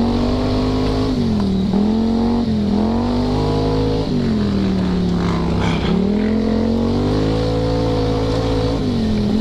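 ATV engine running under changing throttle, its pitch dropping and climbing back about four times as the throttle is let off and opened again.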